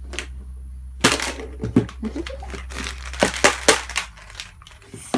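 A child handling plastic surprise eggs: a dense run of crinkles and sharp plastic clicks from about one to four seconds in.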